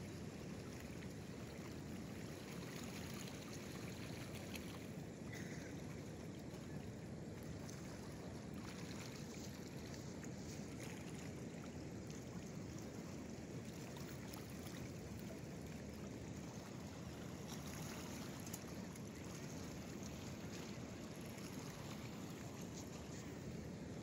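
Faint, steady outdoor ambience: gentle water against the rocky shoreline, with light wind.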